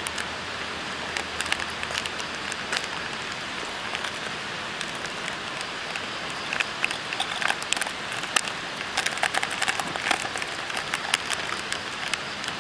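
Plastic instant-soup sachet crinkling and being torn open by hand, a few crackles at first, then a dense run of crisp crackles in the second half as the powder is shaken out. Under it is the steady rush of a river.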